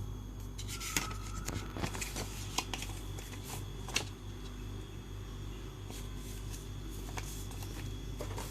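Paper leaflets being handled and leafed through: scattered light rustles and taps over a steady low hum.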